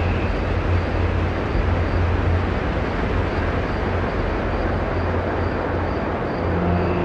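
Dark ambient drone music: a dense, rumbling noise texture over a deep steady hum, with faint sustained tones coming in near the end.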